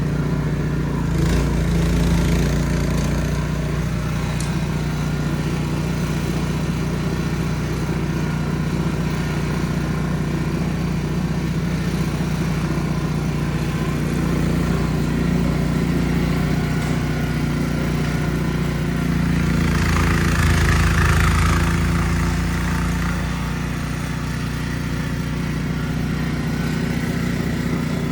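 Ariens Platinum SHO 24-inch two-stage snow blower engine running steadily under load while clearing deep snow. It grows louder and rougher for a few seconds about two-thirds of the way through, then settles.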